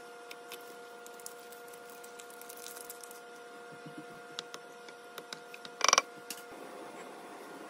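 A wooden spoon stirring soup in a pot on an electric cooktop, with light scattered ticks against the pan and one short, sharp clack just before six seconds in. A steady electrical whine from the cooktop runs underneath.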